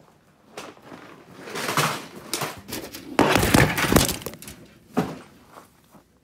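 A propped-up camera toppling over and tumbling down among firewood, a run of clattering knocks and rattles, loudest a little past the middle, with a last knock near the end.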